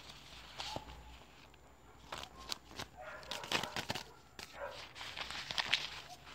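Crisp crackling and flicking of polymer Mexican 20-peso banknotes being thumbed through and counted, in quick bunches of snaps, busiest in the second half.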